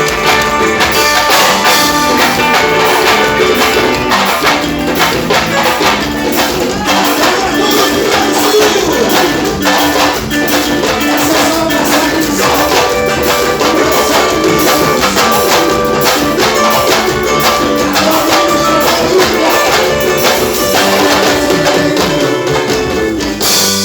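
Reisado folk music played live on tambourines and drums: a fast, even beat under held melody notes.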